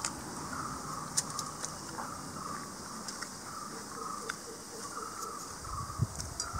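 Outdoor background with a steady high insect hiss, broken by a few sharp clicks and taps of plates and serving ware, the loudest about a second in and again near the end.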